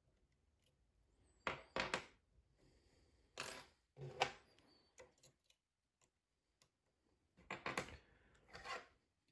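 Lock pick working inside a lock's keyway: short metallic scrapes and clicks, coming in three brief clusters of two strokes each.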